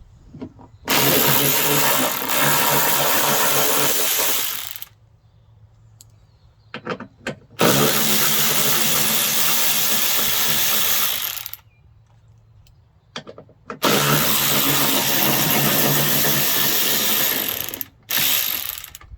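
A cordless power tool running in three bursts of about four seconds each, undoing the three 10 mm bolts that hold a tailgate latch motor, with a short fourth burst near the end and small clicks in between.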